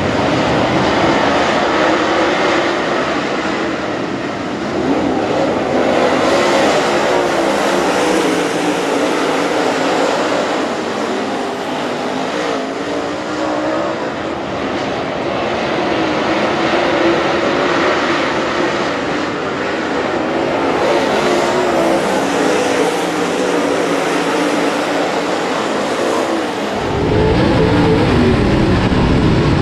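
A pack of dirt late model race cars with V8 engines racing around a dirt oval, many engine notes overlapping and rising and falling as the cars pass. About 27 seconds in, the sound switches to the louder, deeper engine noise heard from inside one of the cars.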